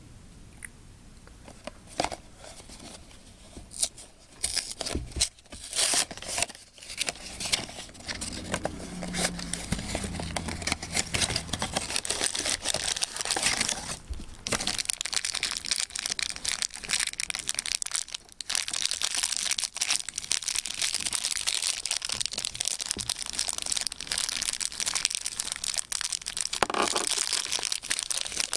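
A small cardboard mystery-figure box and its wrapping being torn open and crinkled by hand, with irregular tearing, crackling and clicking handling noise.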